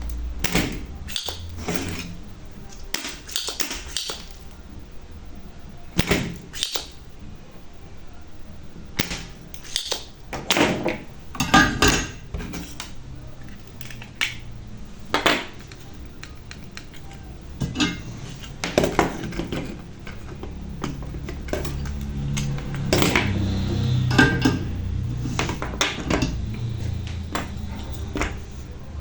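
Irregular sharp clicks and knocks of hand tools being handled on a workbench while relays are desoldered and replaced on a microwave's control board, over a low steady background hum.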